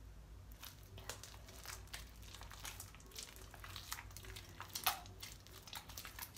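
Very runny homemade slime mixed with toothpaste, squeezed and worked between the hands: faint, irregular sticky crackling and clicking, starting about half a second in.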